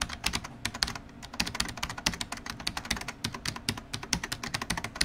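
Rapid computer keyboard typing, a quick run of key clicks with a brief pause about a second in, used as the sound of text being typed on screen.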